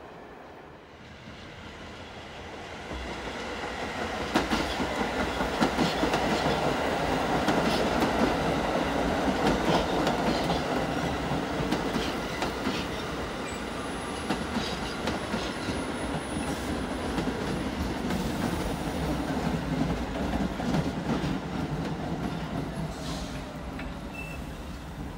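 An R46 subway train passes close by, its rumble building over the first few seconds and staying loud. The wheels click over rail joints throughout, with a faint falling squeal near the end.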